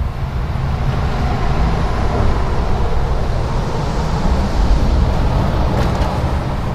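Small 200cc single-cylinder mower engine running with open header exhaust, a steady low running sound that picks up a little about a second in.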